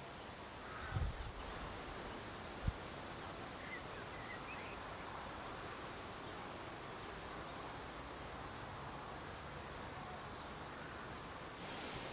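Garden ambience: a steady breeze rustling through trees, with faint, short bird chirps scattered throughout and a couple of low thumps in the first few seconds. Near the end the background changes to a louder, brighter steady hiss.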